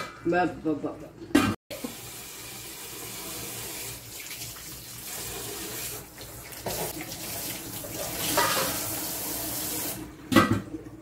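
Fish frying in oil in a stainless-steel wok: a steady sizzle that starts suddenly about two seconds in, swells about eight seconds in, and drops away near the end as the lid goes on.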